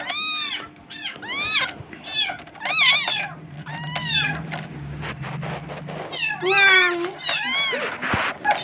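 Newborn kittens mewing: a rapid series of short, high, thin mews that rise and fall in pitch, some overlapping one another.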